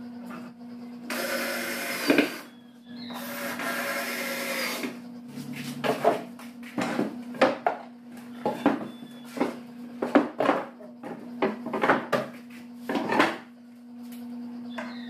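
Power drill running in two short bursts, then a string of irregular wooden knocks as plywood cabinet panels are shifted and fitted together by hand, over a steady low hum.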